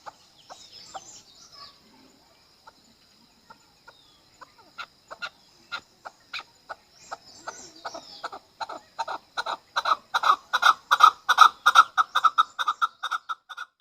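Chukar partridge giving its rally call: a series of short clucking "chuck" notes, scattered at first, then speeding up and growing louder over the second half into a rapid run before breaking off near the end.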